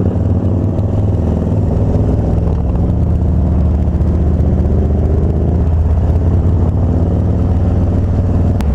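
Harley-Davidson Dyna Street Bob's V-twin engine running while riding, its note rising and falling a little with the throttle.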